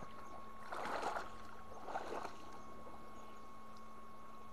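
Shallow water splashing as a man wades and grabs with his hands and a hand net at fish in weedy water, in two bursts about one and two seconds in.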